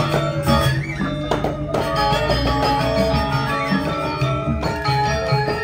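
Balinese gamelan music accompanying a Legong dance: bronze metallophones struck in quick succession, their layered tones ringing on, with frequent sharp mallet strikes.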